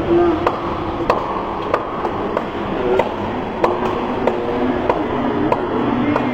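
Badminton rackets striking a shuttlecock in a fast rally: about ten sharp, evenly spaced hits over steady hall noise.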